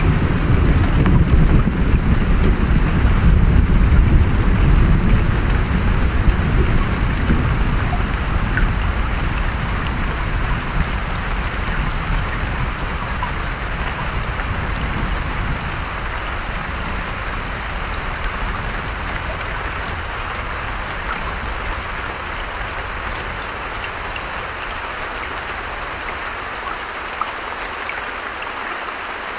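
Steady heavy rain falling, with a deep roll of thunder in the first part that rumbles away and fades out by about halfway through.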